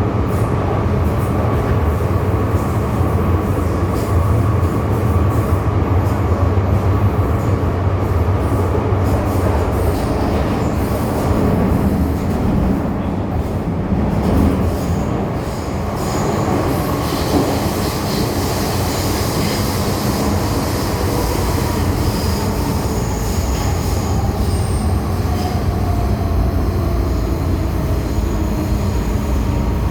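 MTR M-Train electric multiple unit running on the Tseung Kwan O line: a steady low rumble of the train under way, with thin high-pitched wheel squeal in the second half. Near the end a whine falls in pitch.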